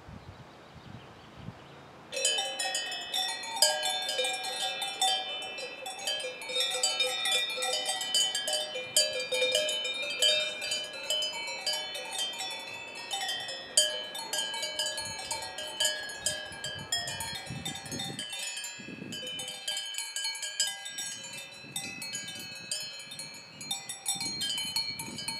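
Many cowbells on grazing cattle clanking and ringing irregularly, their tones overlapping. They come in about two seconds in.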